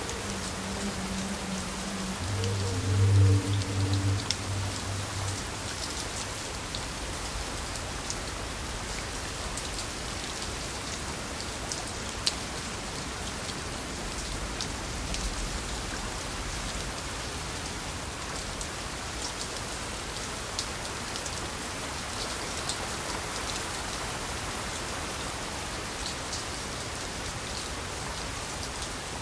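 Steady rain falling, with scattered individual drop hits. A low pitched tone sounds during the first four seconds, loudest about three seconds in, then stops.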